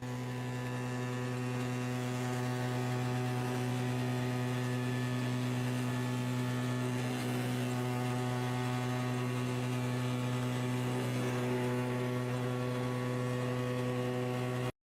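Steady low hum with several overtones, unchanging in pitch and level, that cuts off abruptly near the end.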